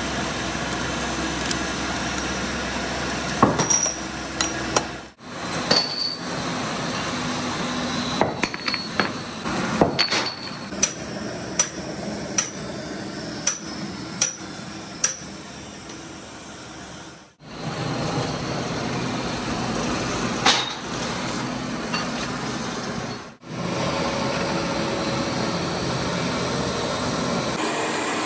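Metal workshop machinery running steadily, broken in the middle by a run of sharp metallic clinks with short ringing pings, about one a second: steel kingpin blanks knocking together. Another sharp clink comes near the end.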